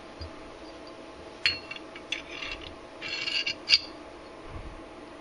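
Steel parts of a field-stripped 1911 pistol clicking and clinking against each other as they are handled during reassembly, each click with a brief metallic ring. There are a few separate clicks, a short rattle just after three seconds in, and the loudest click near the end of that rattle, over a steady low hum.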